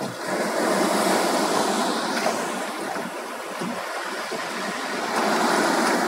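Sea water lapping and sloshing around a small wooden rowboat, a steady rushing that swells about a second in and again near the end.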